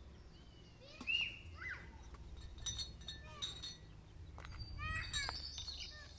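A young chick peeping in short, high calls that fall in pitch, a few at a time. In the middle, small glass tea glasses clink a few times as they are set on a tray.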